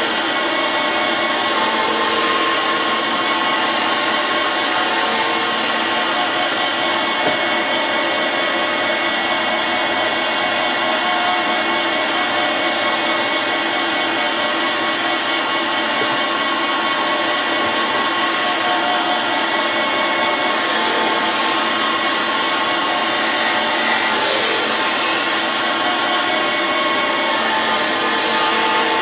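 Surface grinder running steadily, its wheel grinding a wood chipper blade: a constant grinding noise over the steady whine of the machine.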